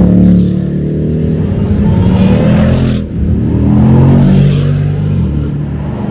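Sports car engines running hard under acceleration, their pitch rising and falling. The sound breaks off abruptly about three seconds in and picks up again.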